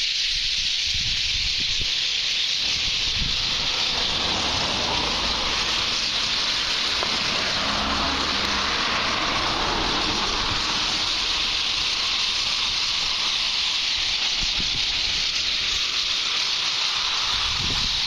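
A huge flock of birds calling all at once, a dense, steady chattering that blurs into a hiss.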